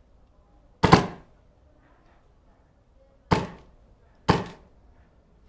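Airsoft DMR (designated marksman rifle) firing three single shots: one about a second in, then two more a second apart past the middle. Each is a sharp snap that dies away quickly.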